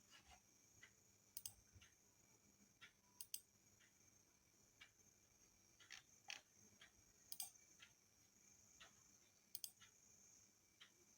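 Faint, scattered clicks of a computer mouse, about a dozen spread unevenly, several in quick double pairs.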